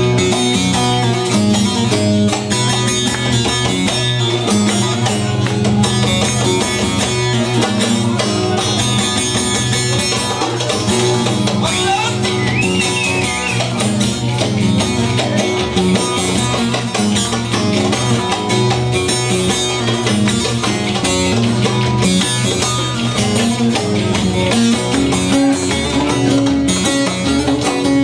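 Instrumental Turkish folk music: plucked string instruments playing the melody over a steady rhythmic accompaniment, with no singing.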